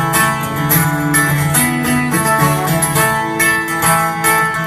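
Guitar strummed in a steady rhythm, played live in an instrumental break between sung verses of a country-folk song.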